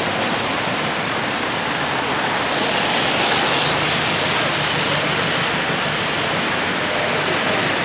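A loud, steady rushing noise with no distinct events.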